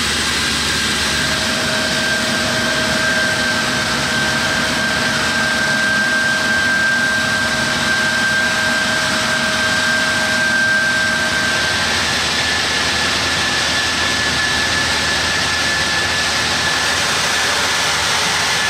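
Utility-vehicle air blower attachment running at full blast: a steady rush of air with a high fan whine, the whine stepping slightly higher about two-thirds of the way through.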